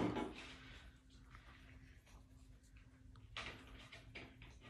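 Faint scratching of a pencil writing on a paper worksheet, a few short strokes, over a steady low hum in the room.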